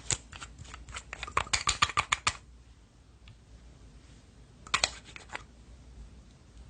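Slime being pressed and poked, making a quick run of sharp clicking pops over the first couple of seconds and a shorter run about five seconds in.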